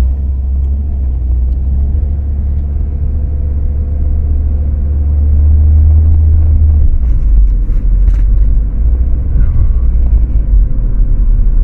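Cabin rumble of a 2012 Ford Focus automatic on the move: a steady low drone of road and engine noise that swells towards the middle and changes character about seven seconds in.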